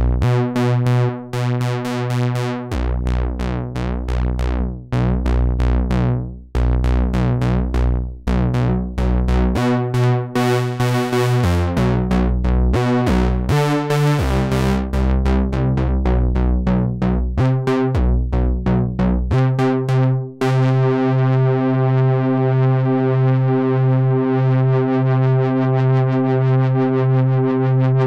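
Behringer Model D, a three-oscillator analog monosynth, playing a fast repeating pattern of short bright notes that shifts in pitch along the way, its filter turned by hand. About two-thirds of the way through, it changes to one continuous held note with the top end filtered off, sounding duller.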